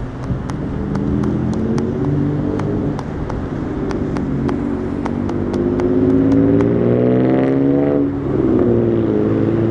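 Road traffic at a busy intersection, with one vehicle's engine accelerating: its pitch climbs for a few seconds, dips about eight seconds in, then climbs again. Faint, evenly spaced ticks run through it.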